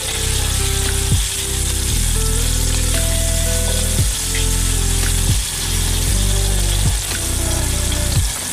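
Climbing perch frying in very hot oil, a steady sizzle, over background music with a steady beat.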